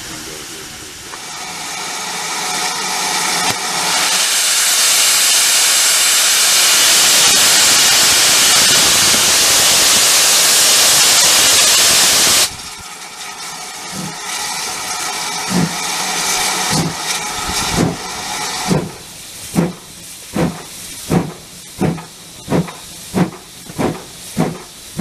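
GWR steam tank locomotive letting off a loud, steady hiss of steam that cuts off suddenly about halfway through. It then starts away with slow, separate exhaust chuffs that quicken as it gathers speed.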